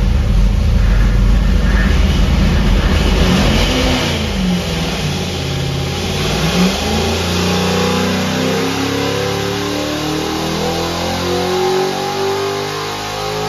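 377-cubic-inch Fontana Clevor V8 running hard on an engine dyno. It gives a loud, heavy rumble for the first few seconds and a quick rev up and down about four seconds in, then climbs steadily in revs through a dyno pull under load.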